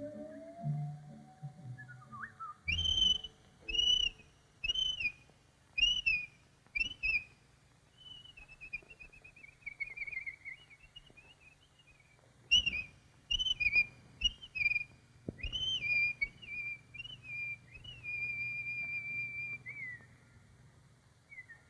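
Cartoon bird whistling. Two runs of short rising whistled notes are separated by a wavering warble, and a long held note comes near the end.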